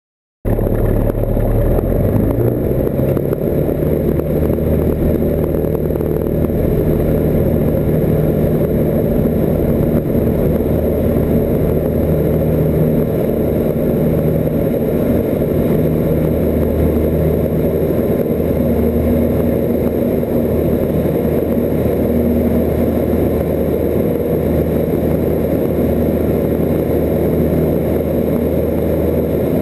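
Cessna 172's piston engine and propeller running steadily at full takeoff power through the takeoff roll and climb-out, heard from inside the cockpit. The sound starts abruptly about half a second in.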